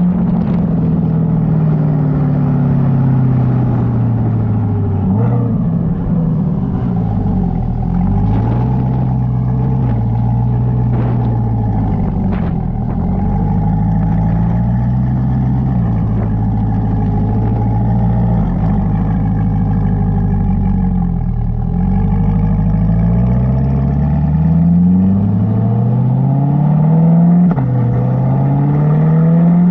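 Chevrolet C8 Corvette Stingray's 6.2-litre V8 through a Corsa Xtreme exhaust, driven. The engine note climbs and falls again and again as the car speeds up and slows through the gears. Near the end a rising note drops sharply at an upshift, then climbs again.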